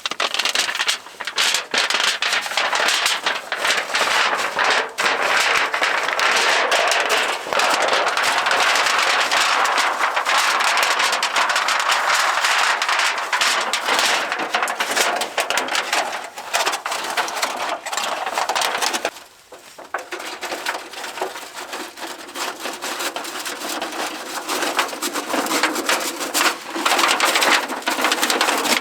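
Dense, continuous crackling and snapping, with a brief lull about two-thirds of the way through.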